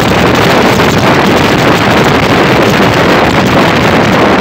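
Loud, steady wind noise rushing over the microphone of a phone carried on a moving motorcycle.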